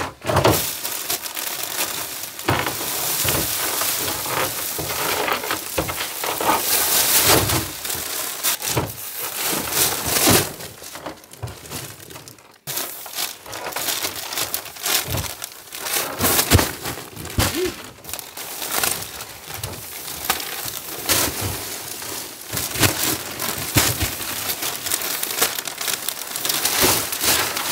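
Plastic sheeting and plastic-wrapped insulation bundles crinkling and rustling as they are pulled off a stack and handled, an irregular crackle that breaks off briefly about twelve seconds in.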